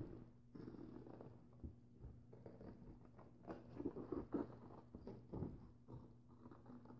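Scissors cutting through thick paper: a faint, irregular run of snips and paper rustle, with a few louder snips around the middle.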